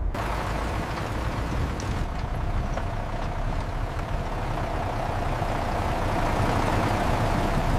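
Steady machinery noise: a low rumble with a faint hum, starting suddenly.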